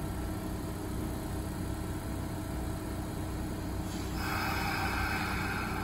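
Kintetsu 5211 series and 9000 series electric train standing at the platform with a steady low hum. About four seconds in, a sharp, steady high-pitched sound starts suddenly and holds for about two and a half seconds.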